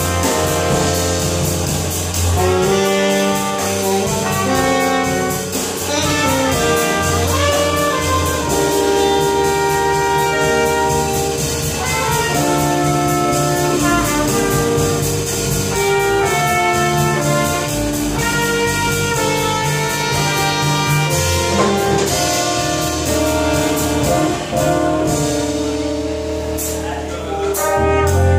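Live jazz quintet playing: alto saxophone and flugelhorn/trumpet carrying a melody of held notes over electric keyboards, bass guitar and drums with steady cymbals.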